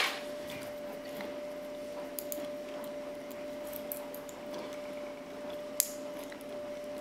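Faint scattered metallic clicks and scrapes of lock-picking tools working in a pin-tumbler padlock, with one sharper click near the end, over a steady low hum.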